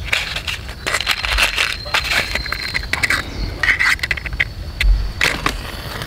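Dry wood shavings and split kindling crackling and snapping as a match is struck and the fire catches, with a few louder snaps about five seconds in.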